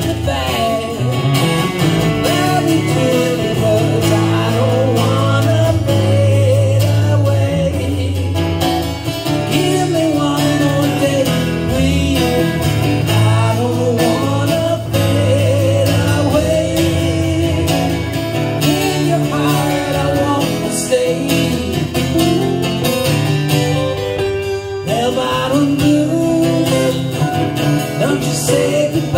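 A live acoustic guitar, strummed, and an electric guitar played together, with a man singing over them.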